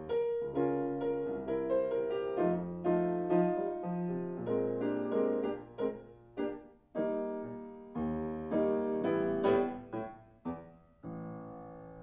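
Solo piano accompaniment to a silent film, a run of struck chords and melody notes that die away, with short breaks in the playing about seven and ten seconds in.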